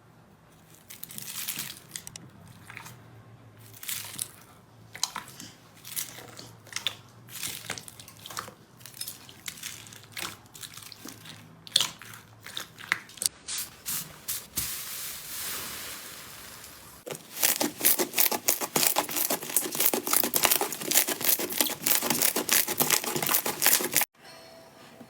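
Slime being squeezed and pressed by hand, giving irregular wet squishes and crackles. About two thirds of the way in it turns into a dense, fast crackling that runs on until a short break near the end.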